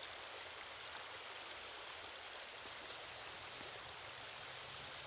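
Shallow river running over pebbles: a faint, steady rush of water.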